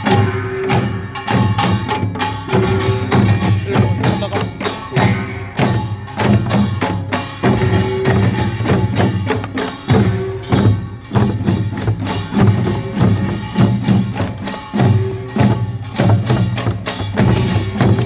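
Korean pungmul percussion band playing a fast, dense rhythm, with clanging gongs and drums striking many times a second.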